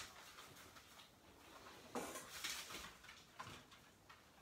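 Faint rustling and scuffling with a few light knocks, clustered around two seconds in and again just after three seconds.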